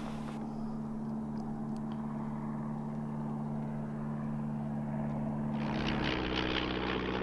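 Propeller aeroplane flying past with a steady engine drone. About six seconds in, its pitch drops and it grows louder.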